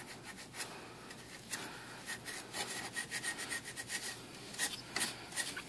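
Emery cloth rubbing in quiet, irregular scratchy strokes against the terminals of a GM 3.1-litre engine's ignition coil pack, scrubbing off rust and corrosion.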